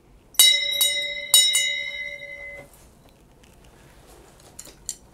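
Brass hand bell rung with four quick shakes, its clear ringing fading away about two seconds later.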